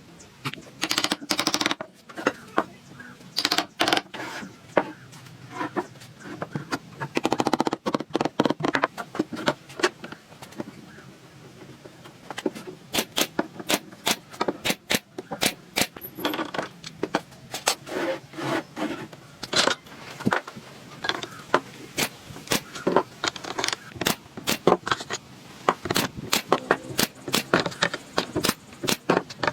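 Irregular series of sharp clicks and knocks of hard objects, likely woodworking taps on wood, with a quick rattle about seven seconds in and closer, more regular clicks in the second half.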